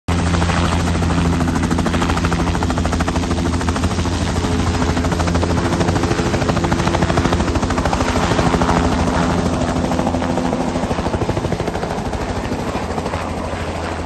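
Helicopter hovering close by, its main rotor beating fast and evenly over a steady engine drone. The sound grows a little fainter over the last few seconds.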